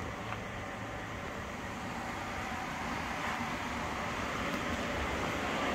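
Steady low rumbling background noise with no distinct events, growing slightly louder near the end.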